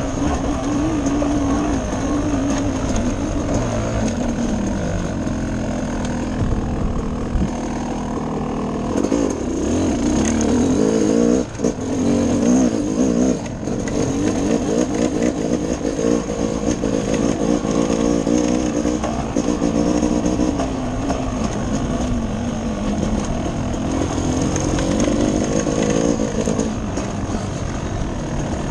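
Dirt bike engine running under load on a trail, its revs rising and falling with the throttle, with wind and ride noise over it.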